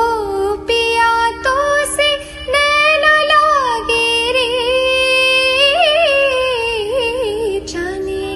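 A woman singing a long wordless vocal passage in Indian style, on held vowels with slides and quick ornaments, over a steady drone note.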